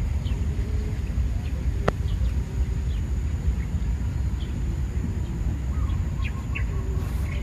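Outdoor ambience with a steady low rumble and scattered short, high bird chirps. A single sharp click comes about two seconds in.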